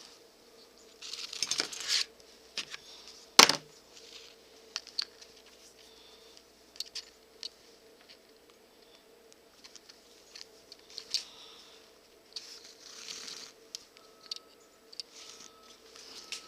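Handling noise from working leather pieces by hand: scattered small clicks and taps with brief rustles, and one sharp click a few seconds in.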